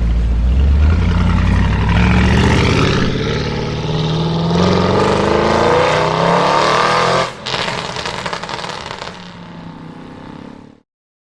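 Audi RS6 Avant's twin-turbo V8 through a Capristo exhaust, accelerating hard: the engine note climbs in two pulls, then the driver lifts off about seven seconds in and the exhaust crackles and pops as the car fades away.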